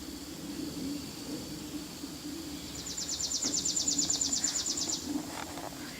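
A small songbird sings one fast, even, high trill of about ten notes a second, lasting a little over two seconds. Under it runs a steady high drone of insects.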